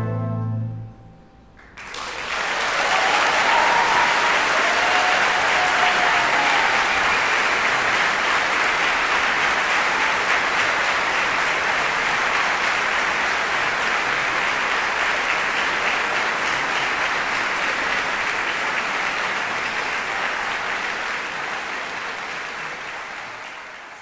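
An orchestra's held final chord ends about a second in. After a short pause the audience applauds steadily with a few cheers, and the clapping slowly fades near the end.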